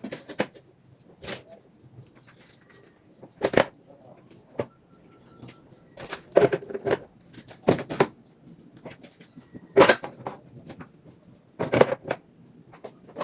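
Irregular knocks and clatters of household objects being handled and set down, about eight sharp hits spread unevenly.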